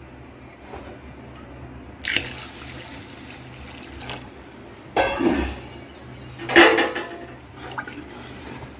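Water and soaked rice in an aluminium pot being stirred with a ladle: three sloshing swishes, the loudest a little past halfway, over a steady low hum.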